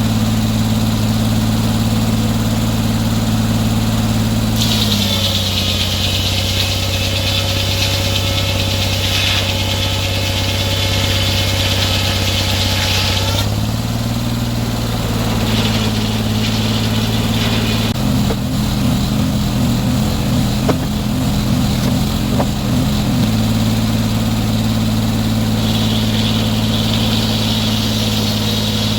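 Sawmill engine running steadily, then dropping in pitch under load while the saw cuts through a log with a loud high hiss for about eight seconds. Later comes a choppy rattle for about five seconds, and near the end a fainter hiss of sawing returns.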